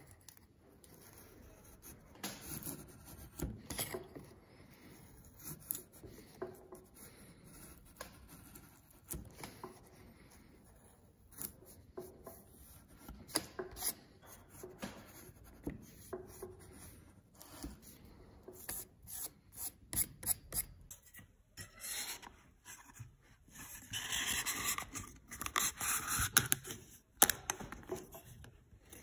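A bench chisel paring thin shavings off the face of a wooden tenon: a series of short scraping cuts with small clicks between them. Near the end, a denser run of rubbing and scraping lasting a few seconds.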